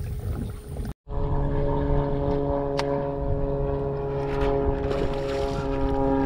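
The kayak's motor running steadily on a low setting, a continuous hum with a clear, even pitch. It comes in after a brief break about a second in.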